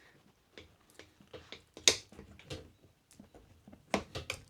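Tire spoons clicking and knocking against the rim of an Inmotion V9 electric unicycle as the tubeless tire's bead is pried off. Scattered sharp clicks, the loudest about two seconds in and a quick run of them near the end.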